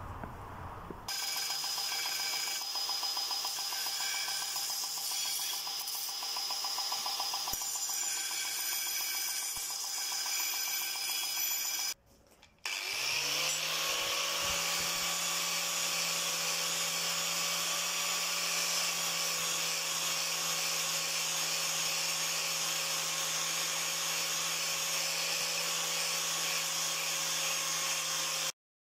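Angle grinder spins up about halfway through and runs at a steady pitch, grinding the spring-steel tip of a crowbar, then stops abruptly just before the end. Before it, a different steady machine noise runs for about ten seconds and breaks off.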